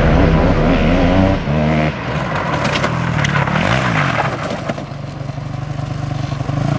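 Racing go-kart's small engine revving up and down as the kart slides around cones with its rear tyres spinning, then holding a steadier note near the end.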